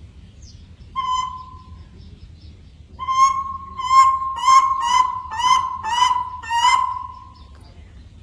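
A monkey calling: one pitched call about a second in, then a run of short, repeated calls about two a second starting about three seconds in, ending with a longer held note.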